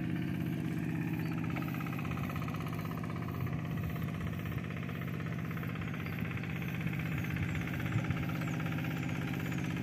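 A small engine running steadily with a fast, even putter.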